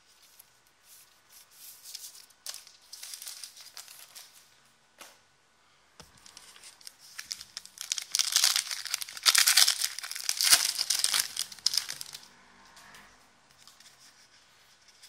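The crinkly wrapper of a Court Kings basketball card pack being handled and torn open: short crackling bursts at first, then a dense, loud stretch of crinkling and tearing about halfway through, settling into soft rustling as the cards are drawn out near the end.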